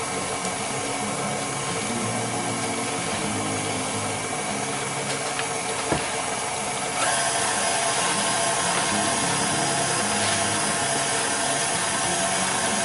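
KitchenAid Classic tilt-head stand mixer running steadily, its flat beater creaming butter, sugar and eggs in the steel bowl. There is a single click about six seconds in, and a second later the motor gets louder.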